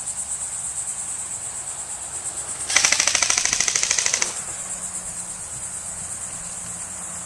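An airsoft rifle fires one full-auto burst of rapid shots lasting about a second and a half, starting a little under three seconds in. Insects buzz steadily in the background throughout.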